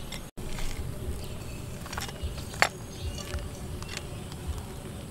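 A metal spoon stirring food in a bowl, with a few short clinks against the bowl, the sharpest about two and a half seconds in.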